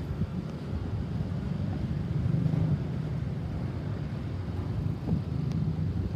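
Low, steady rumble of road vehicles with wind buffeting the microphone; no siren is sounding.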